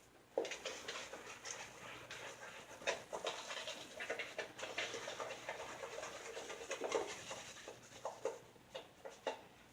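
A shaving brush working wet lather with a continuous squishy crackle of bristles and foam, full of small sharp clicks. Water has just been added to rework the lather. It starts about half a second in and stops shortly before the end.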